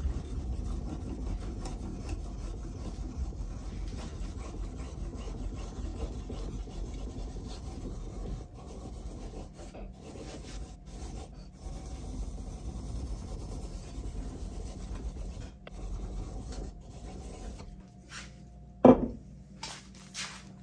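Steel back of an Oxhead drawknife rubbed back and forth on a wet 1,000-grit whetstone, a steady gritty scraping as the back is flattened and polished. The rubbing stops near the end, followed by one loud short knock and a few brief hissy sounds.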